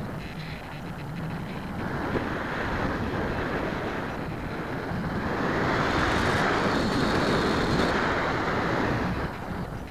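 Airflow rushing over the onboard camera's microphone on a model airplane in flight, swelling louder through the middle and easing off near the end.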